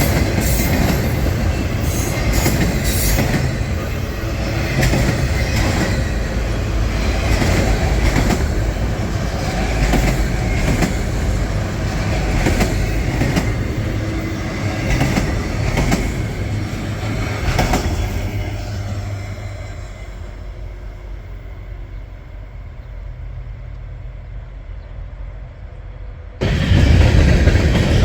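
Freight train cars rolling past, steel wheels clacking over rail joints with some wheel squeal. The sound dies away as the end of the train passes, then cuts suddenly back to loud train noise near the end.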